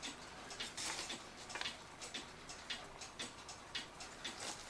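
Faint, irregular light clicks and small metal rattles: the cuckoo clock's case and its tangled chains being handled.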